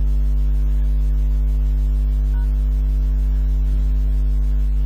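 Steady electrical mains hum, loud and unchanging, with a row of evenly spaced overtones above its deep base tone.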